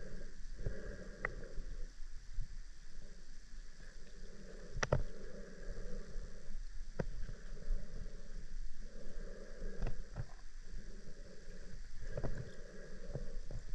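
Underwater river sound picked up by an underwater drone: a steady low rumble of moving water, with a whir that swells and fades every second or two and a few sharp clicks.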